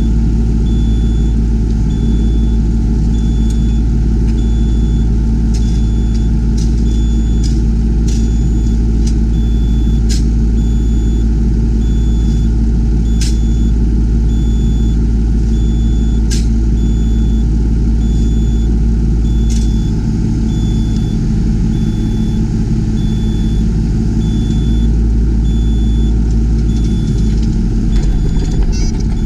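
Yanmar ViO20 mini excavator's diesel engine running steadily under work, with a high beep repeating about once a second and a few sharp knocks.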